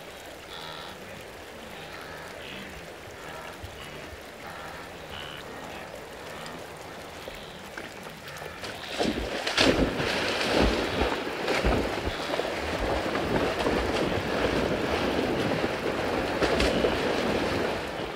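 Wildebeest at the Mara River: faint grunting calls at first, then about nine seconds in a loud rush of splashing water with heavy splashes as the herd begins plunging into the river.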